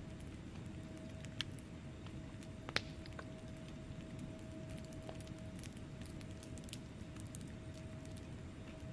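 Wood fire burning in a fireplace: a low steady rumble with scattered crackles and pops from the logs, the sharpest pop about three seconds in.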